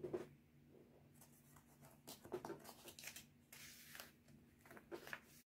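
Near silence: faint rustling and light handling of a paper book by hands, over a low steady hum. The sound cuts off suddenly to dead silence near the end.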